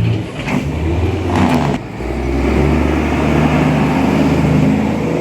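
A vehicle engine running steadily, its pitch shifting about two seconds in as it changes speed or gear.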